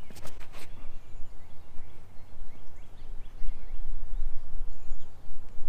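Outdoor ambience: wind rumbling on the microphone, getting louder about halfway through, with small birds chirping throughout. A few sharp scuffs near the start are footsteps on the concrete tee pad during a disc golf throw.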